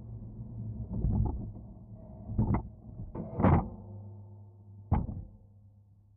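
Slowed-down clunks and knocks from a homemade PVC-rail backyard roller coaster car as it rolls onto its lift hill: four heavy knocks, the loudest about halfway through, over a steady low hum.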